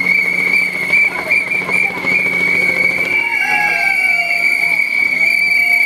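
Whistles blown continuously in a crowd, merging into one loud, steady, shrill tone that wavers slightly, with crowd voices and shouts underneath.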